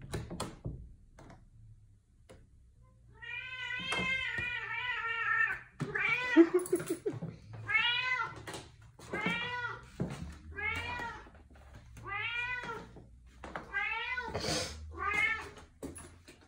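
An 18-and-a-half-year-old cat meowing over and over: one long drawn-out meow, then a string of shorter meows about every second and a half. A door latch clicks a few times at the start.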